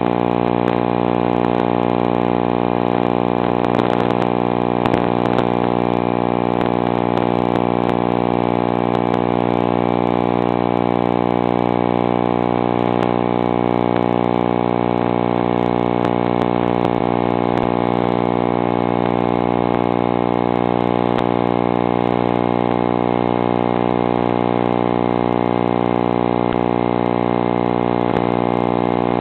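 A steady, unchanging mechanical hum at one constant pitch.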